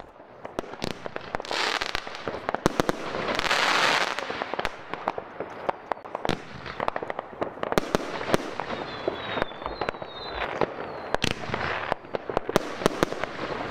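Röder Drei-Schlag Mega-Shot 30 mm shell-tube fireworks going off about 80 m away: many sharp cracks and bangs, with a dense crackling and two longer hissing stretches in the first few seconds.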